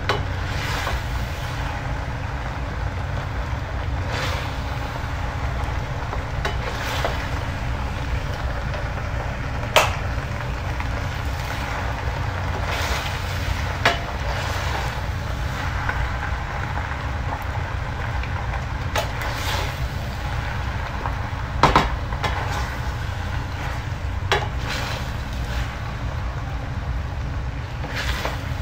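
Wooden spoons stirring and tossing penne with meat sauce in a large metal pan, scraping through the pasta, with a few sharp knocks of a spoon against the pan. A steady low rumble runs underneath.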